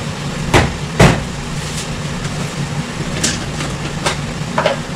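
Water boiling hard in a frying pan over a gas burner: a steady rushing hiss with a low hum beneath it. Two sharp knocks sound about half a second and a second in, and a few fainter clicks follow.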